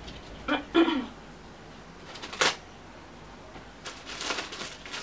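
Plastic wrapping on a cardboard box being picked at and pulled by hand: rustling and crinkling, with one sharp crackle about two and a half seconds in and a cluster of rustles near the end. A short voice sound, without words, comes about a second in.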